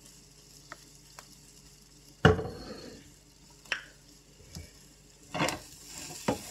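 Steak and eggs sizzling faintly in a hot frying pan. A sharp knock comes about two seconds in, the loudest sound, followed by a few lighter clatters as a spatula works in the pan.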